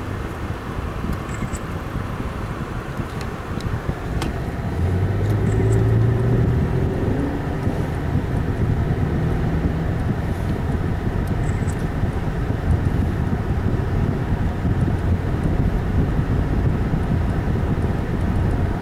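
Car driving, with steady road and engine noise heard from inside the cabin. About five seconds in it grows louder with a low engine drone as the car passes through a road tunnel.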